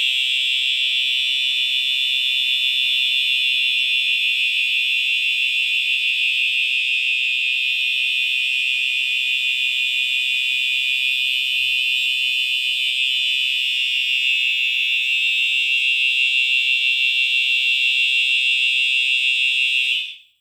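Horn strobes of a home fire alarm system sounding continuously, activated by the panel's drill function. The horn gives one steady, high-pitched electronic tone with a fast ripple and no breaks, then cuts off suddenly near the end.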